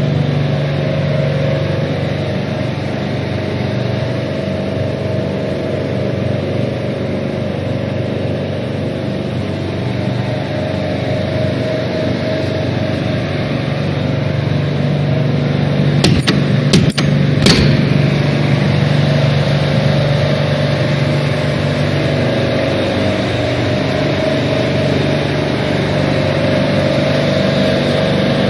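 Steady engine-like drone of running machinery, holding an even pitch. Three sharp clicks or knocks come a little past the middle.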